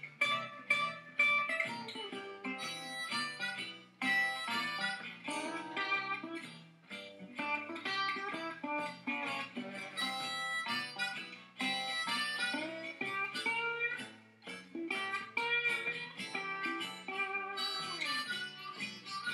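Acoustic blues music: a harmonica playing bent, held notes over plucked guitar.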